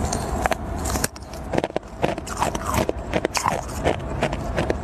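A thin slab of ice being bitten and crunched, picked up close on a clip-on lapel microphone: irregular sharp cracks and crackling of breaking ice, thickest in the middle.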